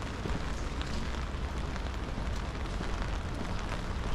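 Steady rain on a city street, a continuous hiss with scattered faint drip ticks, over a low rumble of traffic.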